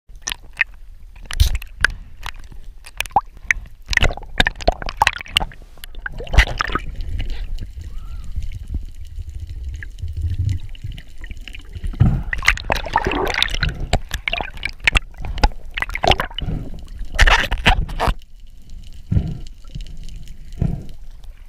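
Sea water sloshing and gurgling around a camera at and just below the surface, with irregular sharp knocks and splashes throughout.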